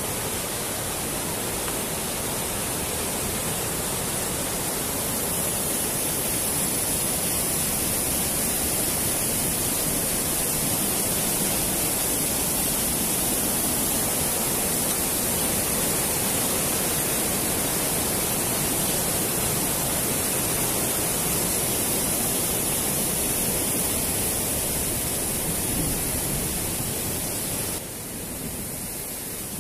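Steady rushing of a mountain river's rapids, the water pouring over boulders in a narrow gorge. It drops a little in level near the end.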